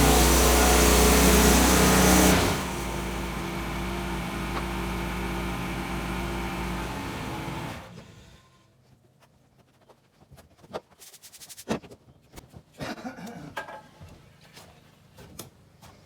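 An engine running loud and steady, dropping to a lower steady level about two seconds in, then cutting off about eight seconds in. Scattered light clicks and knocks follow.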